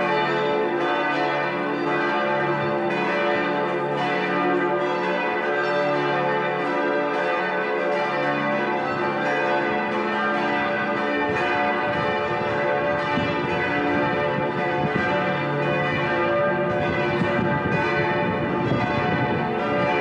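Full peal of the church bells of Paderborn Cathedral and the Market Church, many bells ringing at once, their strokes overlapping without a break.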